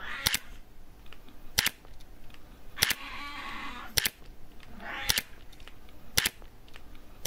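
Camera shutter clicking at a steady pace, one sharp click about every second and a quarter, some of them doubled.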